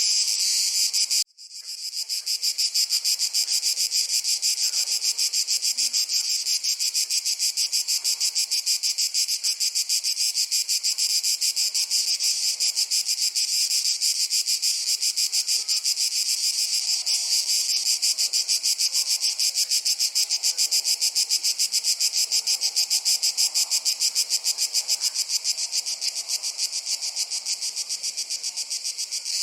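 Dense summer insect chorus, a high-pitched chirring with a fast, even pulse that runs on steadily. It drops out abruptly for a moment about a second in, then swells back.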